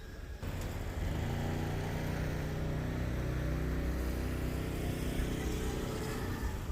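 A motor engine running at a steady pitch, starting suddenly about half a second in and fading near the end.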